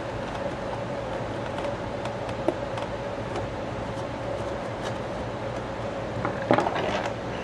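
Small clicks and scraping of screws and plastic parts being handled on a slide projector's plastic housing, with a short cluster of them near the end, over a steady background hum.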